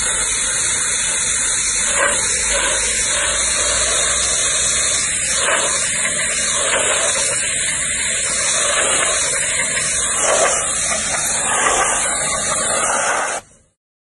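Pressure washer jet spraying water onto painted panels, a steady hiss that cuts off suddenly near the end.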